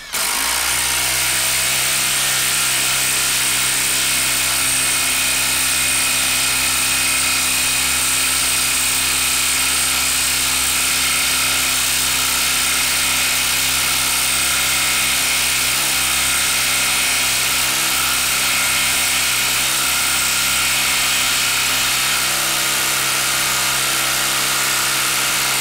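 Hilti SID 2-A12 12-volt brushless impact driver hammering steadily and without a break as it drives a 4-inch lag screw into a wood block through a socket.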